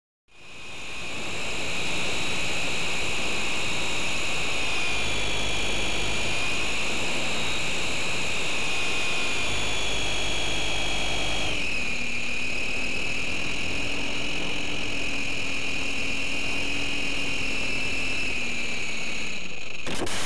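Electric motor and propeller of a GWS Slow Stick radio-control plane, heard through the onboard camera, giving a steady high whine. Its pitch drops a little after halfway as the throttle comes back, and it stops near the end, followed by a short loud noise.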